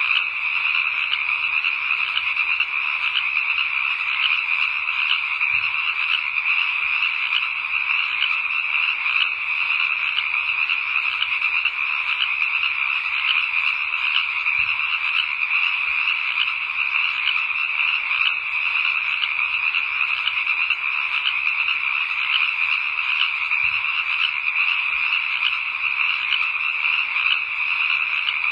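A dense chorus of frogs calling, a steady unbroken trill of rapid pulses that never pauses or changes.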